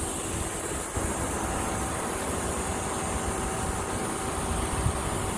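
Steady outdoor background noise: a low rumble with a faint hum over it.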